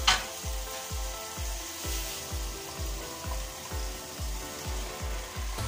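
Background music with a steady bass beat of about two beats a second, over the faint sizzle of tomato masala frying in a pan. A brief sharp click right at the start.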